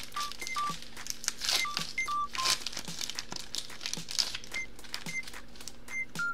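Foil booster-pack wrapper crinkling and tearing as a Pokémon card pack is opened, loudest in bursts around two seconds and four seconds in. Under it runs a light backing track of regular clicks and short high beeping notes.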